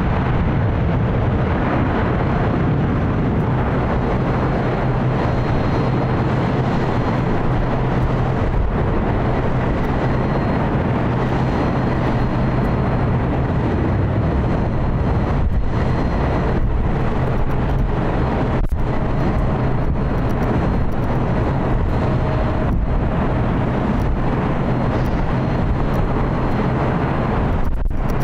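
Jet airliner engines running loud and steady from a heavy aircraft, most likely a Boeing 777.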